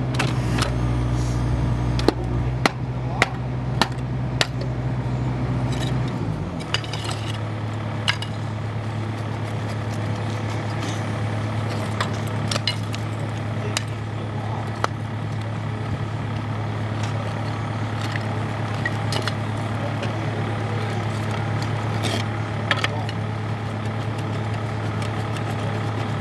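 Engine of trenchless sewer-repair equipment running steadily, dropping to a lower speed about six seconds in, with scattered metallic clinks and clanks.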